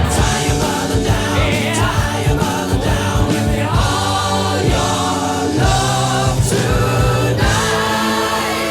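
Background music with singing voices and a steady bass line.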